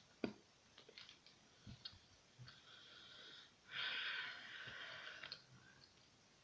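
Faint eating sounds from a piece of chocolate candy held at the lips: small mouth clicks and taps, then a breathy hiss lasting about a second and a half past the middle.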